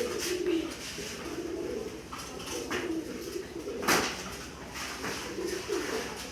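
Pigeons cooing over and over in low, warbling calls, with one sharp knock about four seconds in.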